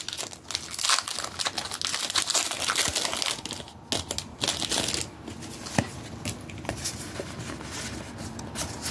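Foil wrapper of a Pokémon TCG Crown Zenith booster pack crinkling as it is handled and opened. The crinkling is dense for about the first five seconds, then thins to a few scattered crackles and clicks.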